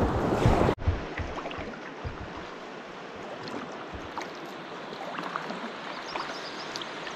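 Rushing river rapids washing against a kayak's bow, cut off abruptly under a second in. What follows is the much quieter sound of a kayak on calm water, with faint light paddle splashes and drips.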